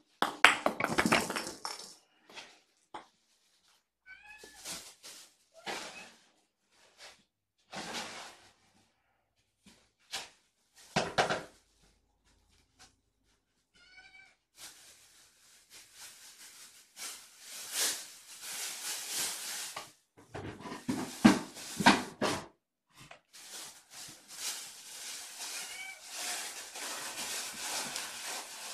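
Young kittens giving short, high, squeaky meows a few times. Bouts of rustling and scraping noise fill the second half.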